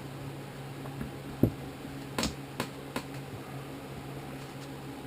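Hand tools knocking and clicking against metal snowblower transmission parts during disassembly: one dull knock about a second and a half in, then a few sharp clicks and taps in quick succession, over a steady low hum.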